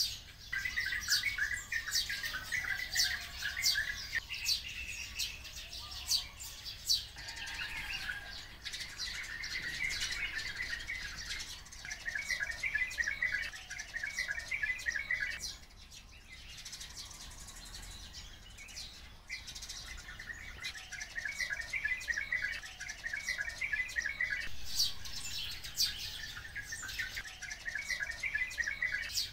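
Small songbirds calling: many sharp, high chirps over repeated twittering trills about two seconds long, with a quieter stretch about halfway through.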